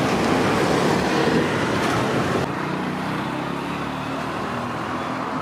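Street ambience dominated by steady road traffic noise. The background changes abruptly about halfway through, becoming a little quieter.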